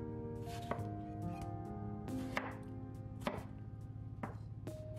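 Chef's knife slicing through a soft tomato and tapping the wooden cutting board, about one cut a second, over quiet background music with held notes.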